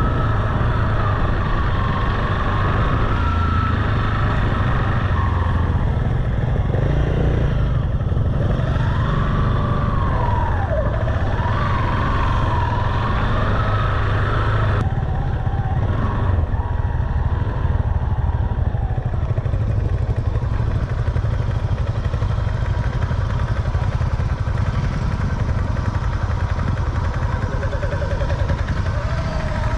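Motorcycle engine running steadily while being ridden, with the revs rising and falling a few times.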